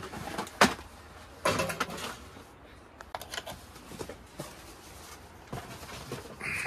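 Small plastic camping fans being handled and set up by hand: scattered clicks, knocks and rattles. The sharpest comes about half a second in, and a dense cluster follows around a second and a half in.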